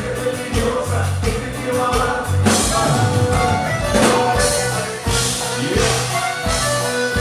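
Live Tejano band playing loud and amplified in a club: drum kit keeping a steady beat under bass and keyboard.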